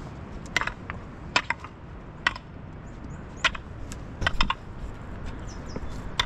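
A series of about seven sharp knocks at uneven intervals of about a second, two of them close together, over a low steady background.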